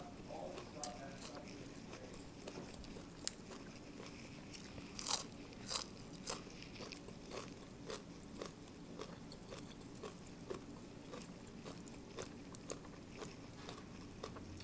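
Close-up crunching and chewing of raw vegetables: irregular crisp bites and chews, the loudest a little over five seconds in.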